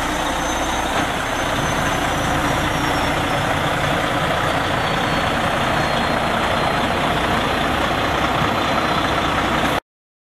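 Heavy truck's diesel engine idling steadily, cutting off suddenly near the end.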